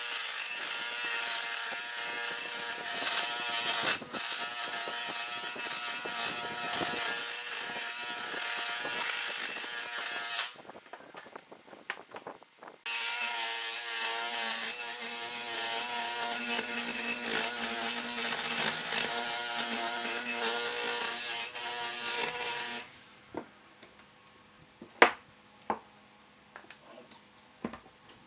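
A handheld electric power tool working wood: a steady motor whine with a grinding hiss. It runs for about ten seconds, stops briefly, then runs again for about ten seconds. A few sharp knocks follow near the end.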